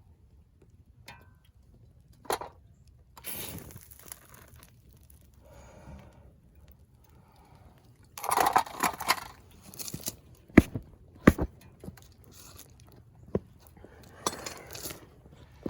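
Metal tools and metal pieces clattering and scraping, with a few sharp knocks about two-thirds of the way through.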